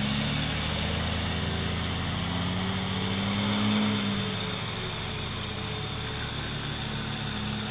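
Jeep Wrangler YJ's 2.5-litre petrol four-cylinder engine running at low revs as the truck crawls slowly downhill, its note rising briefly about four seconds in, then settling steady.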